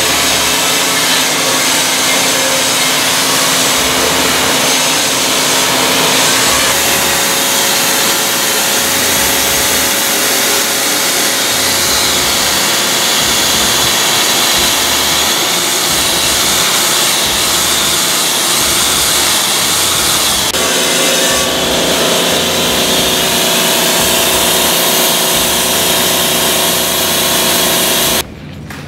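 Kranzle Quadro 700 TST pressure washer wet-sandblasting: a loud, steady hiss of the water-and-sand jet over the machine's steady hum, cutting off shortly before the end.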